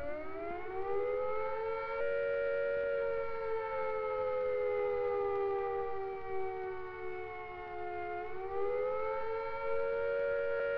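Civil defence air-raid siren sounding the attack warning, a wail that rises at the start, sags slowly in pitch, then rises again about eight seconds in.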